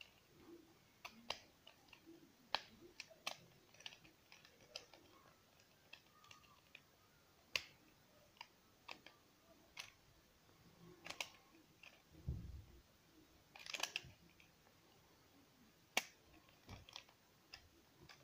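Irregular small plastic clicks and snaps from a POREE PS195 rotary shaver's head being handled and worked, with a soft low thump about twelve seconds in.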